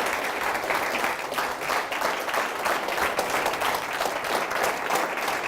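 Audience applauding: many people clapping in a steady patter.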